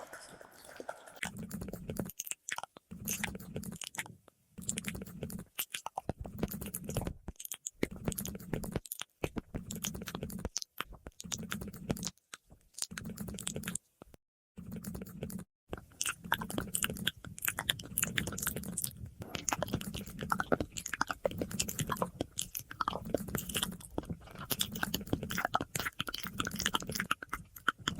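ASMR mouth sounds with an echo effect: rapid wet clicks and smacks in runs, broken by several brief silent gaps.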